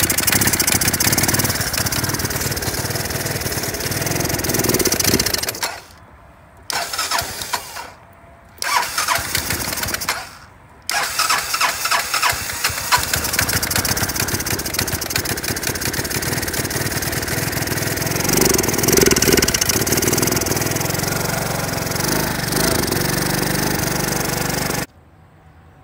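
Honda 250 scooter engine, running on dish soap in place of engine oil and with soap drawn into its intake, starting and running roughly. It drops out briefly three times in the first eleven seconds, then runs steadily and cuts off suddenly near the end.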